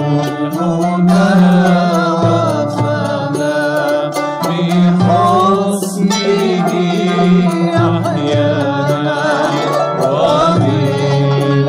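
Live ensemble music in the Andalusi and Middle Eastern tradition. Held low bass notes move to a new pitch every two to three seconds beneath a wavering, ornamented melody, with plucked strings sounding throughout.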